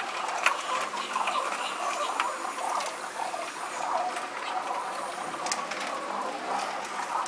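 Feral pigeons pecking seed off a tiled ledge and scuffling over the food: a rapid, irregular patter of light clicks and taps.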